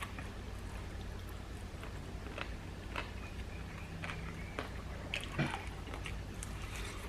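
Chewing and mouth sounds from someone eating a chicken sandwich: a few short wet smacks and clicks over a steady low hum.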